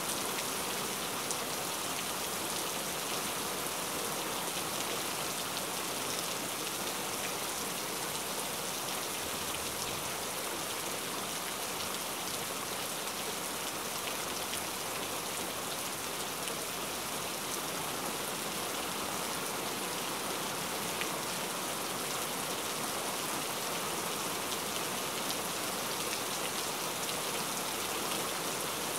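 Steady rain-like ambience: an even hiss with faint scattered ticks like drops, unchanging throughout.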